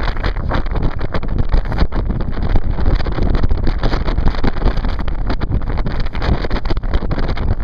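Gale-force wind buffeting the microphone, a loud, gusty rumble with irregular blasts, over the noise of heavy surf breaking on the rocks.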